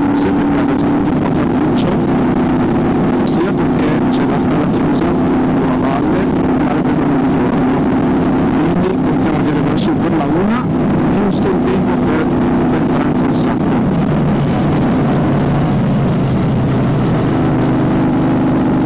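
Moto Guzzi V35's air-cooled V-twin engine running under way on a climb, heard from the rider's position with wind rush. Its pitch wavers about ten seconds in and settles at a different note a few seconds later.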